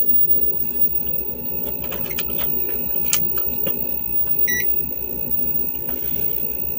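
Steady low electrical hum with a few light clicks and taps around two to three seconds in, as metal multimeter probes are placed on a CRT TV circuit board, then one short electronic beep about four and a half seconds in.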